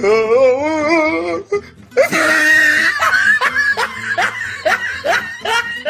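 A wavering, warbling pitched sound for about a second and a half, then loud laughter in quick pulses that cuts off suddenly at the end.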